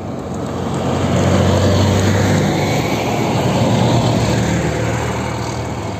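An armored military vehicle drives past close by. Its engine is a steady low drone that swells about a second in and holds, over the noise of its tyres on the asphalt.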